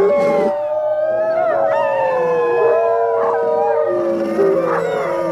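Several wolves howling in chorus: long, overlapping howls at different pitches, the loudest sliding slowly down, with short higher calls breaking in now and then.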